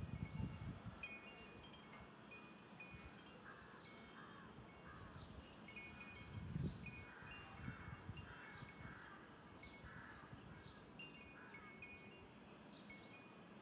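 Faint wind chimes tinkling in short, clear high notes, irregularly, with a few soft low thumps near the start and about six and a half seconds in.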